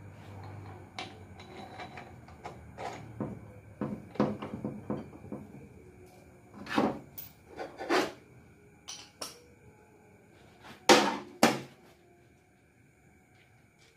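Irregular metal clacks and knocks of engine parts and tools being handled while a connecting rod bearing cap is fitted on a Mitsubishi 4D56 engine block, ending in two sharp knocks close together about two-thirds of the way through.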